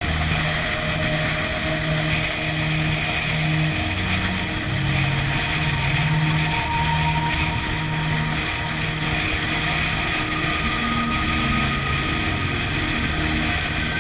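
Car driving steadily along a road, recorded from a camera mounted on the outside of the car: engine and road noise with wind on the microphone.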